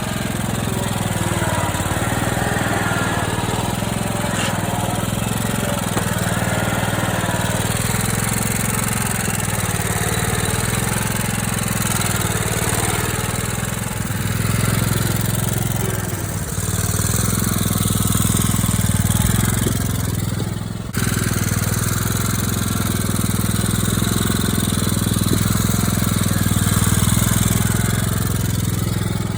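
Riding lawn mower engine running steadily while the mower is driven, with a brief dip about two-thirds of the way in.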